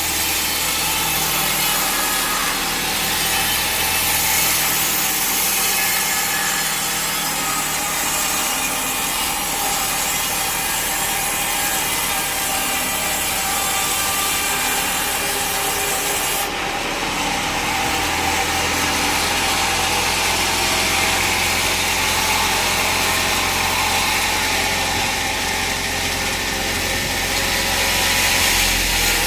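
A powered sawmill saw cuts steadily through a log, with the drone of its driving motor underneath. The high hiss of the cut lessens a little over halfway through.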